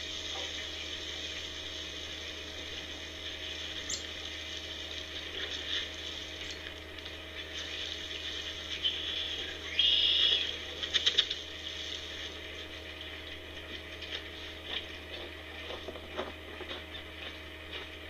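Steady hiss with a few scattered clicks. About ten seconds in there is a short scrape, then a quick run of sharp clicks and rattles as an object is handled and hung on a tree trunk.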